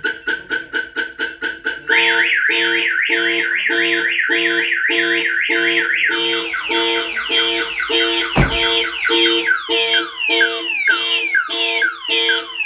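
Viper 5305V car alarm going off: its siren cycles through tones, first fast chirps, then a rapid warble, then repeated falling sweeps, while the car horn honks about one and a half times a second. Triggered by the door being opened while the system is armed.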